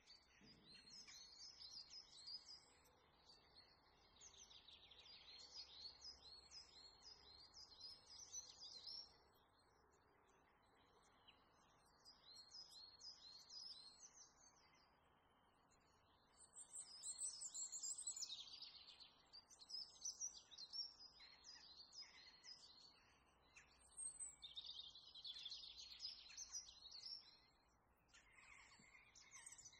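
Faint birdsong: bouts of quick, high chirps repeated in runs of several seconds, with short pauses between runs, over a faint steady hiss.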